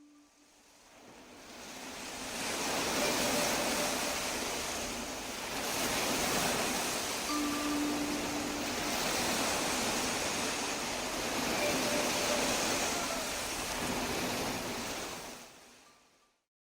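Surf-like wash of noise that fades in, swells and ebbs in slow waves every few seconds, then fades out, with a few faint held chime tones over it.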